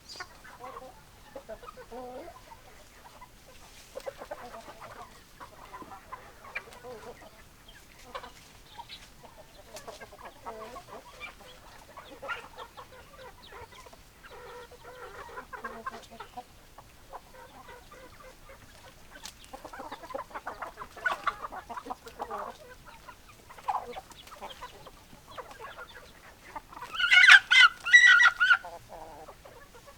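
Chickens clucking on and off, many short calls from several birds, with one much louder, higher call near the end.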